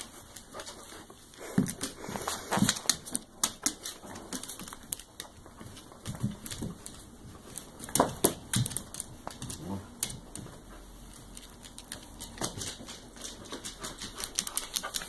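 A dog moving about on a hard floor, its claws clicking and scrabbling in quick irregular runs, with a few duller thumps.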